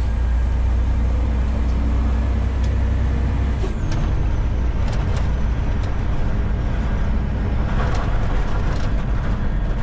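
Semi truck's diesel engine running steadily from inside the cab as the truck rides over a rough, broken road surface, with several sharp knocks and rattles from the bumps. The engine note shifts about four seconds in.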